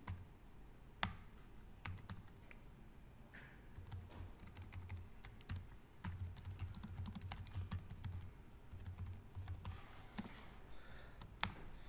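Typing on a computer keyboard: a run of light key clicks, one louder click about a second in, then steadier, denser typing through the middle.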